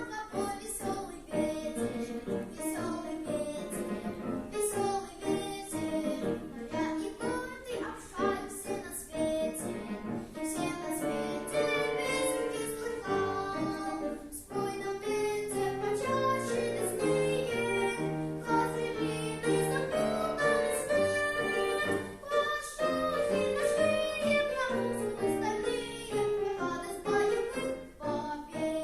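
A boy of about nine singing in a classical, academic vocal style over instrumental accompaniment.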